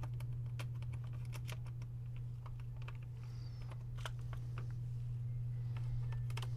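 Irregular light clicks and taps of small metal and plastic laptop parts being handled as a hinge is fitted back onto the screen's back cover, with a steady low hum underneath.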